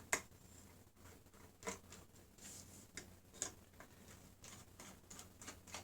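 Faint, scattered clicks and taps of a hard drive's black plastic front cover being pried and unclipped, with four or so sharper clicks in the first few seconds.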